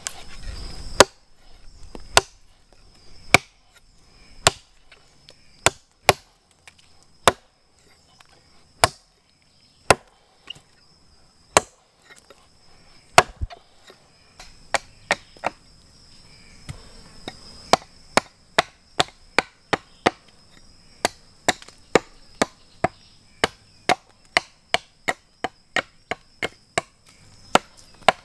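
Hatchet blade chopping into a wooden log in sharp separate knocks. The blows come about once a second at first and quicken to two or three a second in the second half.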